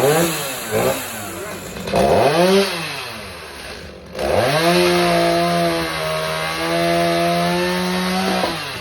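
Stihl chainsaw's two-stroke engine, just started from cold, revving: two short rises and falls in pitch, then a held high rev for about four seconds that drops back near the end.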